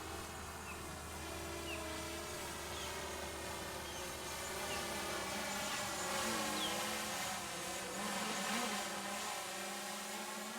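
Quadcopter drone's motors and propellers whining steadily, their pitch wavering up and down as they adjust speed, with a few short bird chirps.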